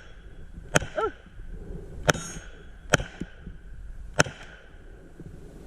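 Four single shots from a Draco 9S 9mm pistol fired at an unsteady pace, roughly a second or more apart.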